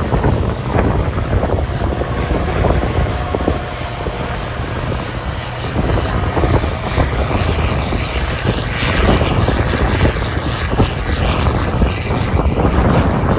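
Harvest machinery engine running with a steady low drone, with wind noise on the microphone.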